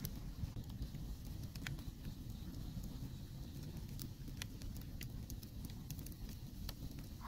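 Open wood fire crackling: scattered, irregular sharp pops and snaps over a low, steady rumble.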